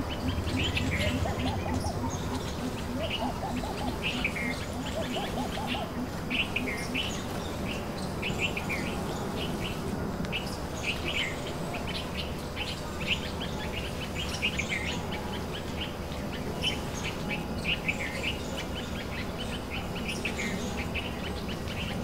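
Greater coucal giving its deep, baritone call, a fast even run of low hoots that stops about six seconds in. Bulbuls and other small birds chirp over it throughout.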